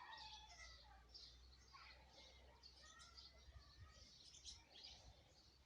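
Faint chirping of several small birds, many short calls overlapping, over a low steady hum.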